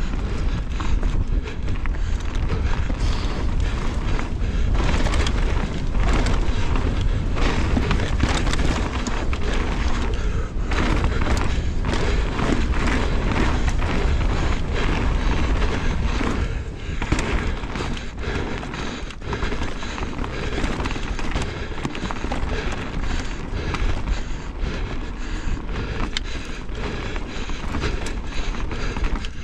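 Mountain bike descending a dirt and gravel trail at speed: tyres rolling and crunching over loose stones, and the frame, chain and suspension rattling and knocking over bumps. A steady low rumble of wind buffets the action camera's microphone throughout.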